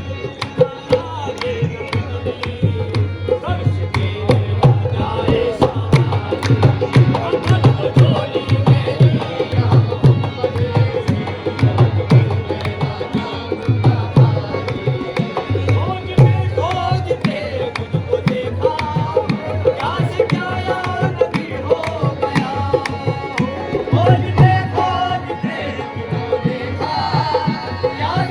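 Qawwali music: tabla drumming at a quick, busy rhythm under held instrumental notes, with singing voices coming through more strongly in the second half.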